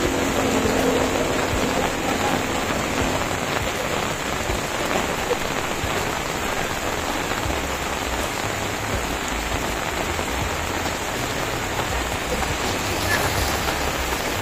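Heavy rain falling steadily in a downpour, a dense, even hiss of rain on the surfaces around.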